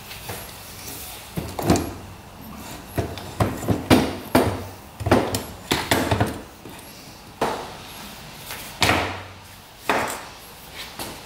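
Irregular knocks and clicks, about a dozen of them, as metal parts are handled and fitted on a dirt bike's engine during reassembly.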